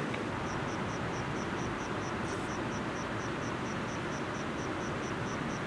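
A cricket chirping in a regular high pulse, about four chirps a second, over a steady hiss.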